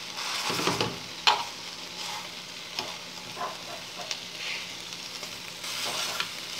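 Chicken fillets sizzling in a frying pan once the cooking water has boiled off and they are frying in their own fat and browned bits. A metal fork clicks and scrapes against the pan as the pieces are moved, with the sharpest click about a second in.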